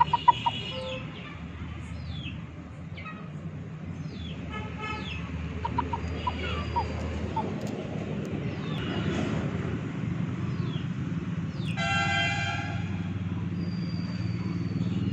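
Outdoor ambience of short, falling bird chirps repeating every second or so over a low steady traffic rumble, with a vehicle horn tooting once about twelve seconds in.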